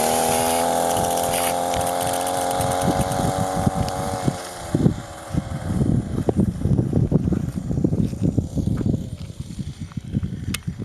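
Chainsaw engine of a homemade moped running at high revs, the revs sagging slightly before the engine note cuts out about four and a half seconds in. After that comes an irregular low rumbling and buffeting.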